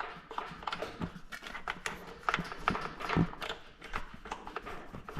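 Irregular light clicks and taps, with a louder knock about three seconds in, from hands screwing the vacuum hose's threaded fitting clockwise onto the freeze dryer.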